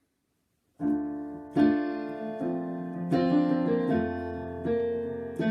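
Silence, then about a second in, the piano introduction to a hymn begins: held chords, each new one struck roughly every three-quarters of a second.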